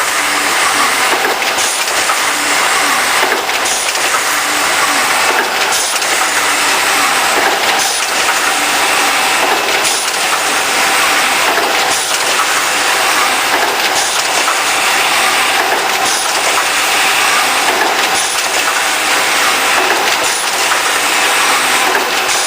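Automatic IC card milling machine running its cycle: a loud, steady mechanical noise with a repeating change about every two seconds.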